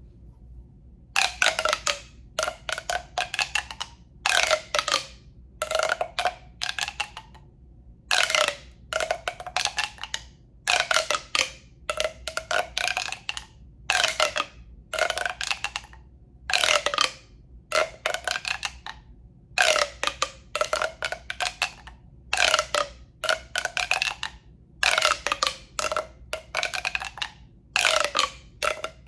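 Rapid runs of tapping and scratching on a hollow tube, each run about a second long with a hollow ring that rises in pitch, repeated over and over with short pauses between.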